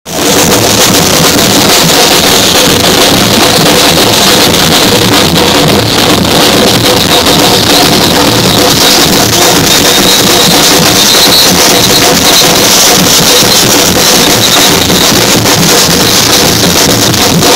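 Live parade music with pounding drums, loud and unbroken, so close and loud that the recording is distorted.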